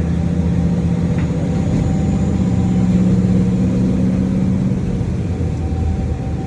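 KiHa 40 series diesel railcar's engine running under power as the train departs, its pitch rising about two seconds in, holding, then dropping back about five seconds in.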